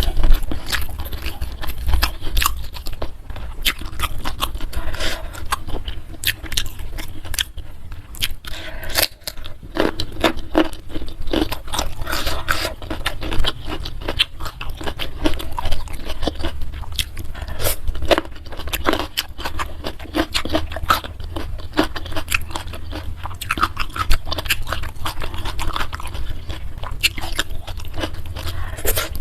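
Close-miked chewing and crunching of food by a person eating, with many irregular wet clicks and crackles from the mouth, over a steady low hum.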